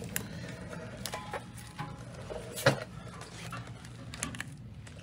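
Scattered light clicks and knocks of parts being handled, with one louder knock about halfway through, over a low steady hum.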